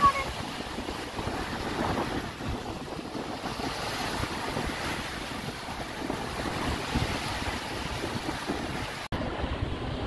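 Small surf breaking and washing up on a sandy beach, a steady rushing wash, with wind buffeting the microphone. The sound cuts out for an instant about nine seconds in.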